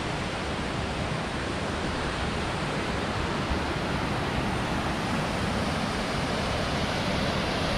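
River water rushing over whitewater rapids: a steady, even rush of water.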